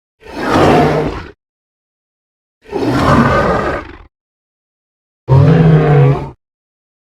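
Three separate Stegosaurus sound-effect calls: deep, growling creature vocalizations, each about a second long, with silence between them.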